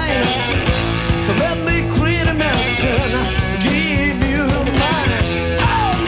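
Rock band playing with singing, electric guitar and drums, heard from a 1990 FM radio broadcast of a studio live session recorded on cassette tape.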